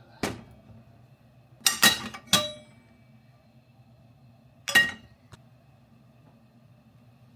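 Kitchenware clinking and knocking as it is handled: one knock just after the start, a quick cluster of three ringing clinks about two seconds in, and a last clink near five seconds, over a faint steady low hum.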